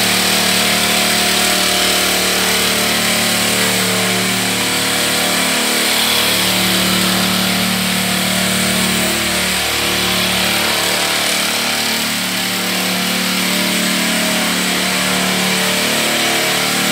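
Small engine of a backpack motorized sprayer running steadily while misting disinfectant, its pitch wavering slightly every few seconds.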